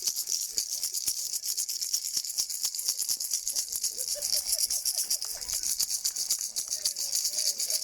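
Many people clapping and rattling noisemakers together, a dense, continuous clatter. Faint calls or voices rise over it about halfway through.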